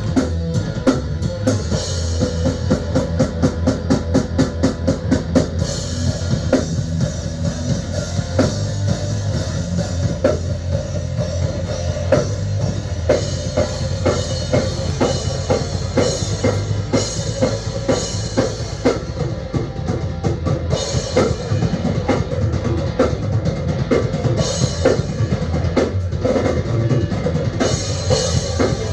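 Live rock band playing: a drum kit with a busy kick drum and cymbals under guitar and bass, with a fast, even run of drum strokes in the first few seconds.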